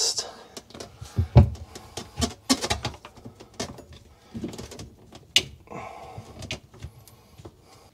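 Plastic sink drain pipes and trap fittings knocking and clicking as they are handled and pushed together, with one heavier thump about a second and a half in.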